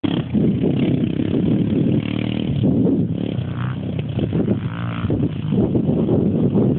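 A 110cc pit bike's small single-cylinder engine running and revving up and down, mixed with a rough, noisy rumble.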